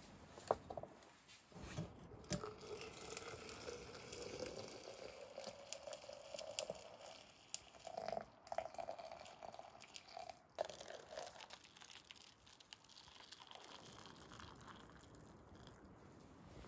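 Hot water poured in a stream from a stainless steel kettle into a glass French press over ground coffee. The pitch rises slowly as the press fills. Then come shorter pours into paper cups, with light clicks and taps.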